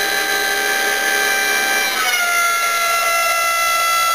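Homemade hydraulic power pack's electric motor and pump running with a steady whine. About two seconds in, the pitch drops and holds lower as the pump comes under load, then climbs back near the end.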